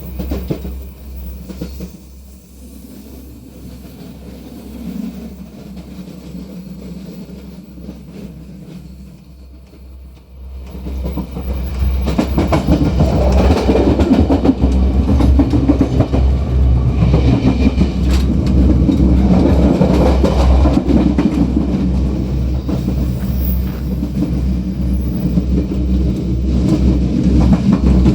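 Diesel multiple unit Tze-Chiang express heard at the gangway between two coupled sets: a low diesel drone with wheels and couplings clattering over the rail joints. About ten seconds in it becomes much louder and busier, and it stays that way to the end.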